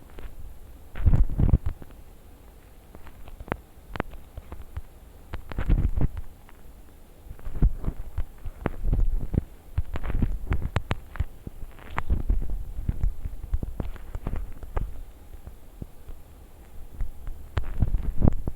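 Irregular low thumps and knocks in uneven clusters, with scattered sharp clicks among them.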